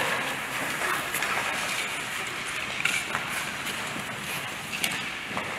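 Short-track speed skate blades hissing and scraping on the ice in a steady wash of noise, with a few faint clicks.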